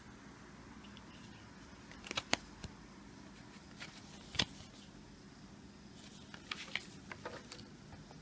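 Cardboard coin folder being handled and opened by hand: scattered short clicks and rustles of card and paper, in small clusters, the loudest about four and a half seconds in.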